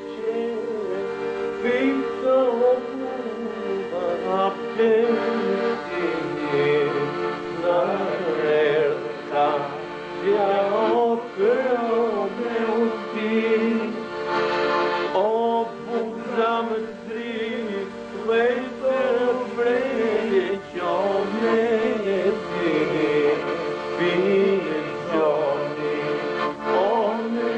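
A man singing a song to piano-accordion accompaniment: the accordion holds steady notes under a drawn-out, wavering vocal melody.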